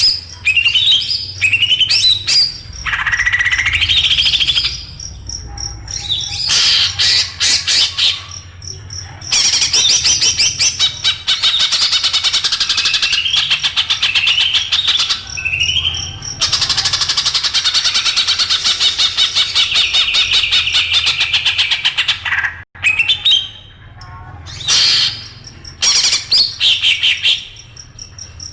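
Small songbirds singing a dense, harsh masteran song: rapid chattering trills mixed with short rising whistles, running almost without a break for long stretches, with a momentary cut about two-thirds of the way through.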